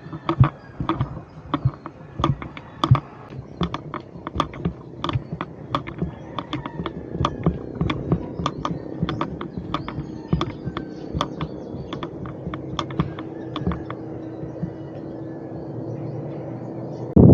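Irregular small clicks and knocks, several a second, over a faint steady hum that grows plainer in the second half.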